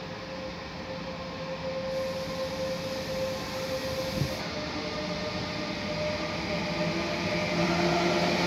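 DB Class 152 electric locomotive hauling a train, approaching along the track. Its steady rumble and hum grow louder as it nears.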